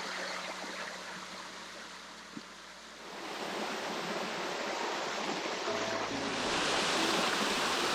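Water rushing and splashing against a kayak paddle and hull as it is paddled. The noise dies down about two to three seconds in, then swells back and grows louder toward the end.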